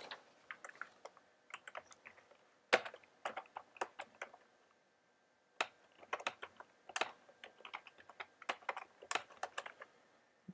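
Typing on a computer keyboard: quick, irregular key clicks in two runs, with a pause of about a second and a half midway.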